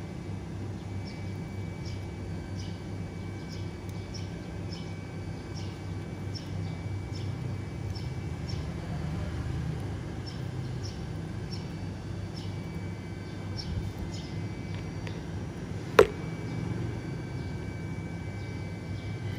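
Steady low background rumble with short high chirps, a bird or insect, repeating about twice a second. A single sharp click stands out near the end.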